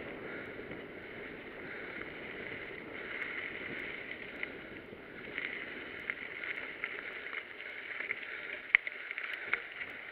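Mountain bike rolling down a bumpy dirt trail, heard from on the bike: a steady rush of tyre and wind noise with rattling clicks and knocks from the bumps, growing more frequent in the second half, the sharpest knock near the end.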